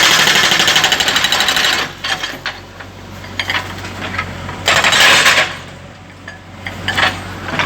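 Demolition breaker (jackhammer) hammering in short bursts: a long run of very fast blows for about the first two seconds, a shorter burst about five seconds in, and scattered knocks in between.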